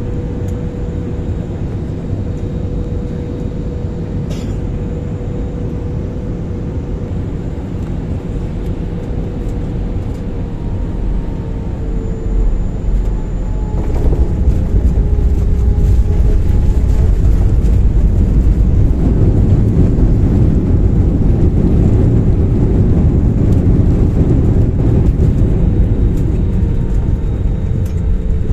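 Airbus A320 cabin noise during landing: a steady rumble of engines and airflow with a faint falling whine. About 14 seconds in, the airliner touches down and the noise becomes louder and rougher as the wheels roll along the runway with the spoilers up.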